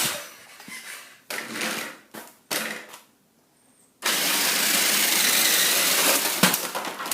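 Toy RC car's electric motor and gears running in short bursts, then in one sustained run of about three seconds, with a sharp knock near the end.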